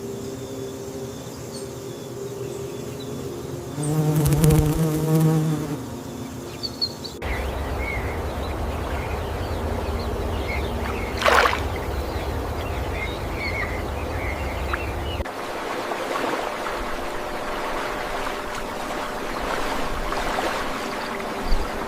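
Buzzing of flying insects over outdoor ambience, with scattered faint bird chirps; a louder buzz passes about four seconds in, and the background shifts abruptly twice.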